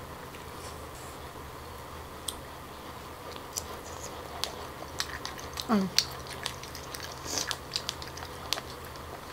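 A person biting and chewing steamed Korean abalone: scattered short clicks and mouth sounds, with a brief sound of her voice about six seconds in.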